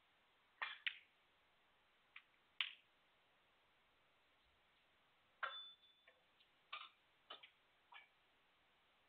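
Snooker balls clicking: about eight short, sharp clicks at irregular intervals, two close together near the start, then more spread over the second half.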